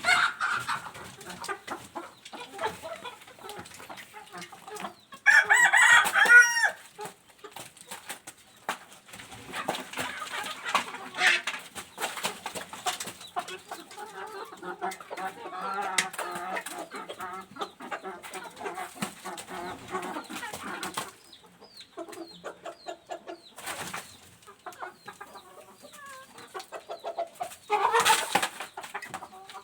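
A flock of desi (Indian indigenous) chickens clucking and calling throughout, with a rooster crowing loudly about five seconds in and another loud call near the end.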